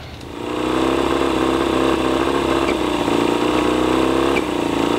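Yamaha 20 HP two-stroke outboard motor starting and settling into a steady idle, its ignition timing at about 4 to 5 degrees after top dead centre.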